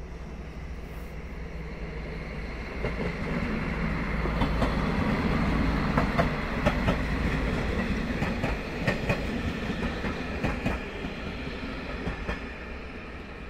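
Passenger train of coaches passing close by at a station, its wheels rumbling steadily and clicking over rail joints and points. It grows loudest in the middle and eases off toward the end.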